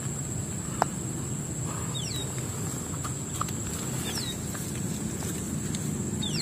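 A bird gives a short falling whistle about every two seconds over a steady high-pitched whine and a low rumble, with a single sharp click about a second in.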